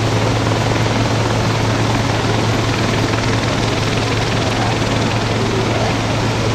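Air ambulance helicopter coming in low to land on a road: loud, steady rotor and turbine noise with a deep hum underneath.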